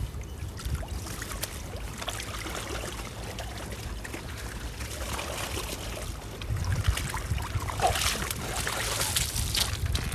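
Water splashing and trickling off a fishing keepnet as it is hauled out of the lake, louder from about two-thirds of the way in as the net comes out and drains. Wind rumbles on the microphone throughout.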